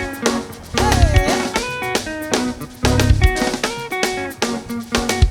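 Live praise band playing an upbeat instrumental passage, with guitar over a drum-kit beat.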